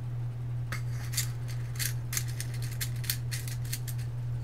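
Small parts being handled off-camera: a quick, irregular run of light clicks and rattles lasting about three seconds, starting about a second in. A steady low electrical hum runs underneath.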